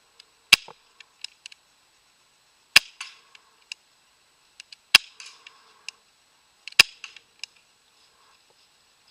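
Airsoft gun firing single shots: four sharp cracks about two seconds apart, each followed by a few fainter clicks and a short rattle.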